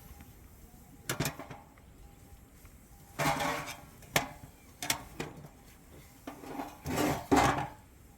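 Pots, dishes and utensils knocking and scraping in several short bouts, loudest near the end.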